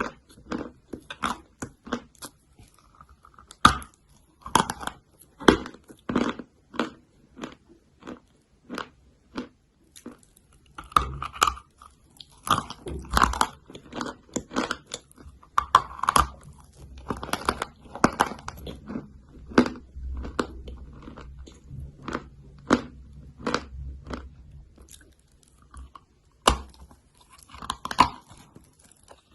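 Chalk being bitten and chewed: a run of irregular crisp crunches, coming thicker and heavier through the middle stretch.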